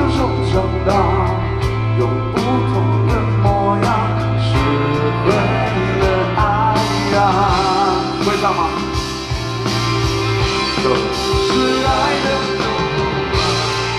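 Live rock band playing, drums keeping a steady beat under bass and sustained pitched guitar or vocal lines.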